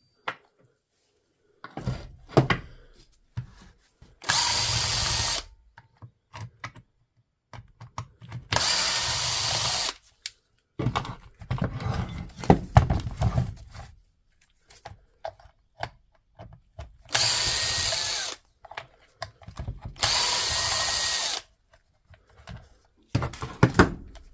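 A small cordless power tool motor spinning in four short bursts of about a second each, most likely a power screwdriver running screws out during disassembly. Between the bursts come handling clicks and knocks of parts and tools.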